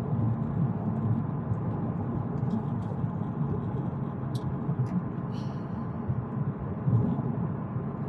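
Steady low rumble of a moving vehicle, engine and road noise, with a few faint brief ticks.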